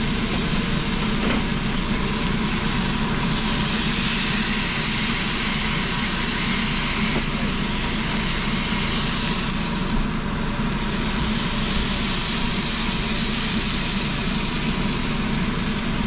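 Porterhouse steak sizzling steadily in a piping-hot cast-iron skillet, over a steady low hum.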